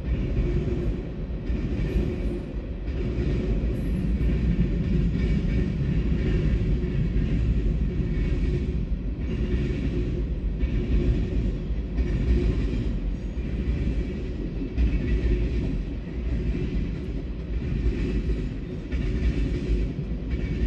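A train rolling past at close range: a steady rumble of wheels on rail, with a regular beat about once a second as the cars go by.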